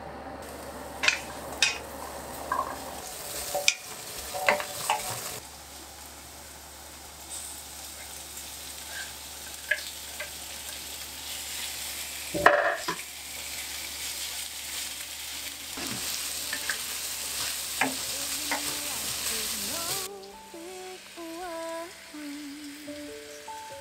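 Daikon cubes sizzling in a hot iron wok, with the clacks and scrapes of a wooden spatula and chopsticks stirring them, and a loud clatter about halfway through as sliced pork goes in. Soft background music comes in near the end, as the sizzle drops away.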